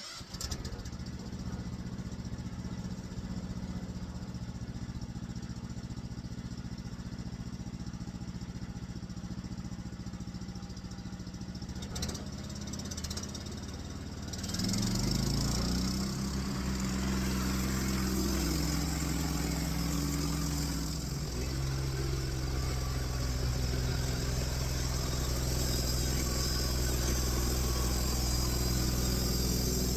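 Small gasoline engine of a homemade sawmill running steadily at low speed. About halfway through it is throttled up and runs louder, its pitch sagging and recovering for a few seconds before running steady again.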